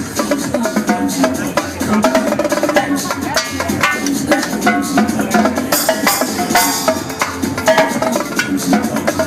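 Electronic dance music with live drumming played over it: rapid, dense strikes on drums and cymbals over a steady track with sustained melodic notes.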